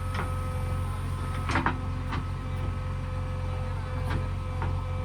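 Heavy diesel engine of earthmoving machinery running steadily, with a few short knocks and clanks over it.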